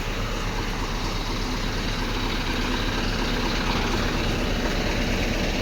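Heavy truck's diesel engine running steadily at idle.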